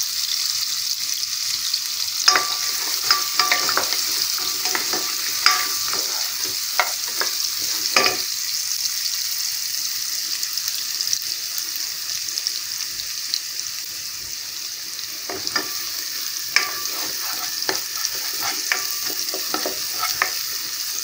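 Chopped onions sizzling in hot oil in a nonstick pot, being fried to brown before the meat goes in. A wooden spatula scrapes and taps against the pan as they are stirred; the stirring thins out in the middle and picks up again in the last third.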